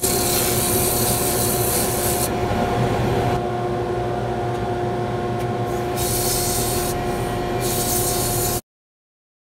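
Mini lathe running with a steady whine while abrasive rubs against the spinning segmented wood bangle; the hissing rub eases and returns in spells. Everything cuts off abruptly near the end.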